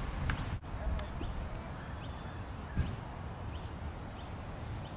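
Short high chirps repeating about once every two-thirds of a second over a low steady rumble.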